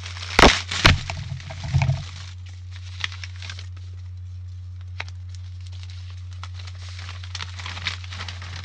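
Packaging on a reusable lunch bag being opened by hand: two sharp snaps about half a second apart near the start, then about a second of rustling, then scattered light crinkles and clicks. A steady low hum runs underneath.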